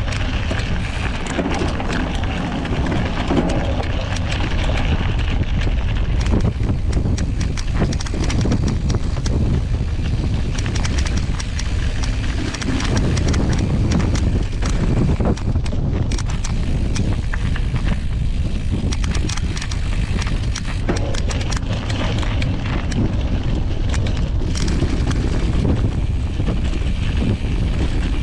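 Mountain bike riding over a rough dirt track: wind rumbling on the microphone, with the knobby tyre crunching over gravel and a constant irregular clatter as the bike jolts over stones.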